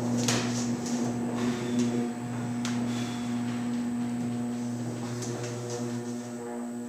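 Motorized 16-foot raked stage turntable rotating: its drive humming steadily with a pitched whine, with scattered light clicks, getting a little quieter near the end.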